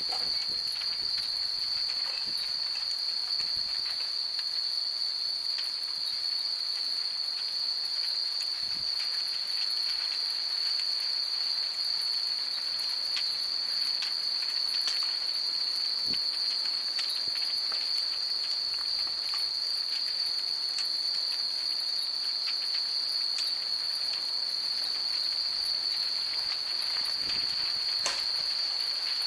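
Hundreds of wind chimes tinkling with many light, scattered strikes over a steady high-pitched hiss.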